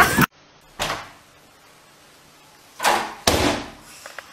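A door and its handle knocking and rattling in three short bursts, once about a second in and twice around three seconds in, as a python pushes its way through. It opens with a brief burst of noise that is cut off abruptly.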